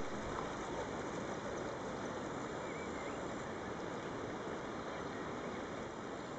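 Shallow river running steadily over gravel and stones.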